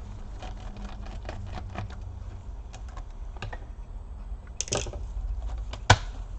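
Small scattered clicks and taps of hand work on a Dell Inspiron 1525 laptop's plastic case while the keyboard screws are taken out with a small screwdriver. There is a brief louder rustle just before five seconds in, and one sharp click near the end.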